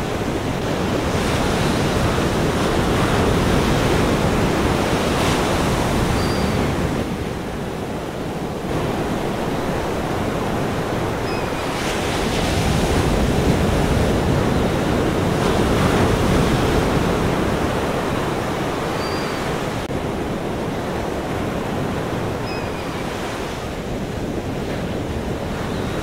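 Ocean surf washing in, a steady rush of waves that swells and eases every few seconds.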